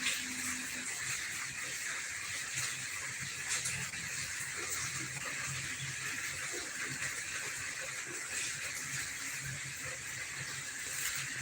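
Steady background hiss with faint, indistinct low sounds underneath.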